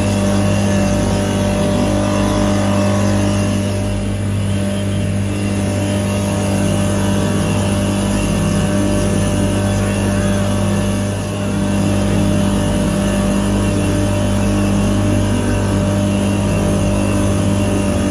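Yamaha outboard motor running steadily at speed, a loud, even drone over the rush of the churning wake.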